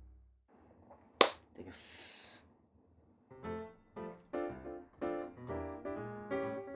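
A single sharp click about a second in, then a brief high, crisp hiss; from about three seconds in, piano music starts, a run of separate notes.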